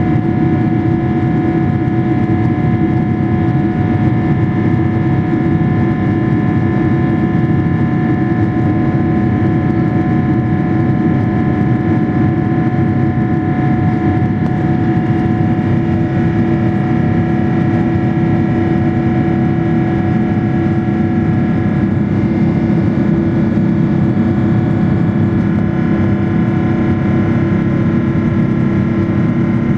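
Engine and cabin noise inside a Boeing 777-300ER, whose engines are GE90s: a steady drone with several constant whining tones over a low rumble.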